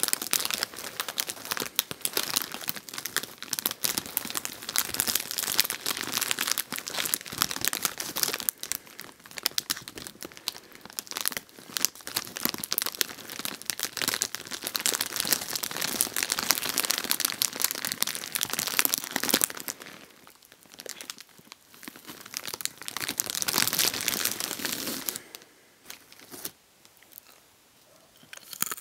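Crinkly plastic pretzel bag being handled and crumpled, a dense, continuous crackling that eases off and goes nearly quiet near the end.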